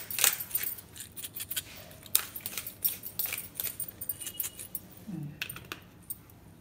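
Pepper mill grinding black pepper over a bowl: a rapid crackle of small clicks that thins out after about three and a half seconds.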